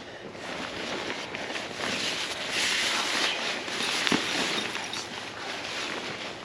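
Crackling, rustling fabric of a pop-up screen shelter being handled and pulled into shape, loudest for a second or so about midway, with a short knock just after four seconds.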